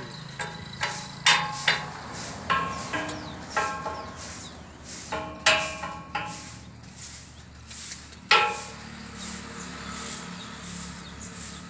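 Goats bleating in short calls, several times, one falling call about eight seconds in among the loudest. Sharp knocks and clicks come between the calls over a low steady hum.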